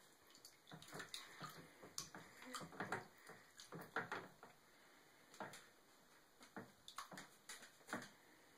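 Faint, irregular small splashes and taps of water as a baby moves its legs in a shallow infant bath tub, a scatter of short, separate strokes rather than steady running water.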